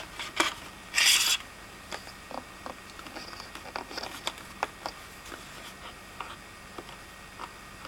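A small portable radio being handled: faint clicks and ticks from its switches and knobs, with a short burst of hiss about a second in.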